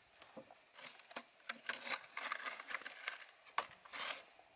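Scattered clicks, taps and rustles of hands handling wooden boards and a plastic pack of metal wood screws, with small clinks of the screws.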